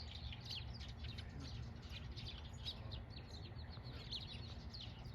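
Birds chirping and twittering: a dense, overlapping run of short, quick, falling notes, over a low steady rumble.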